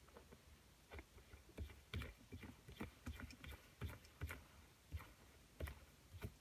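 Faint, irregular clicks and taps as a shift knob ball is handled and turned onto the threaded shift lever of a 2013 Mustang's six-speed manual.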